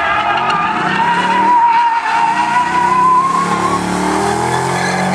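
Dodge Challenger's engine revving, its note rising and falling, as the car slides through a turn with its rear tires spinning; a long wavering tire squeal runs through the middle.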